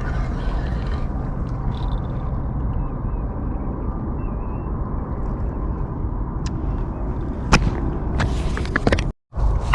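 Steady low outdoor rumble. Near the end come a sharp click and then a short run of clicks and rattles, and the sound cuts out briefly just before the end.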